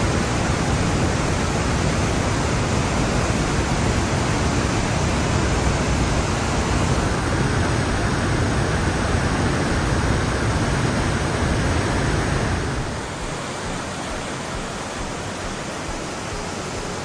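Torrent of water rushing through a narrow rock gorge, a steady dense rush with a deep rumble. About twelve seconds in it becomes quieter and thinner, with less of the low rumble.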